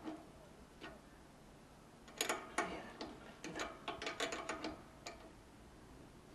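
Irregular sharp mechanical clicks and taps, about a dozen over three seconds, from hands working at a motorbike's handlebar controls and fittings.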